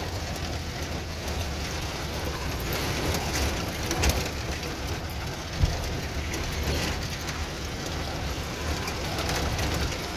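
A vehicle driving over a rough brick-paved track, heard from on board: a steady low rumble with rattling, and a sharp knock from a bump about halfway through.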